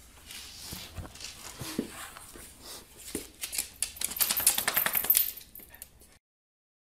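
A dog's claws clattering and scrabbling on a hardwood floor as it twists and gets to its feet, a quick run of sharp clicks that is loudest about four to five seconds in. The sound cuts off abruptly about six seconds in.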